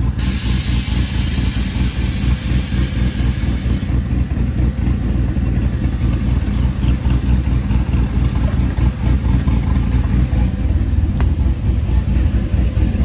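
Air Lift 3P air-suspension system working the rear air bags: a loud, steady, rough mechanical rumble, with a hiss of air over the first few seconds that then fades.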